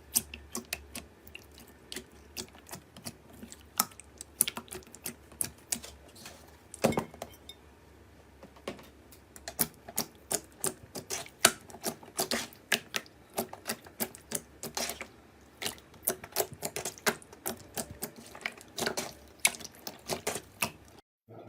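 Slime being squeezed and pressed by hand, giving a long run of sharp, irregular clicks and crackles, some much louder than others.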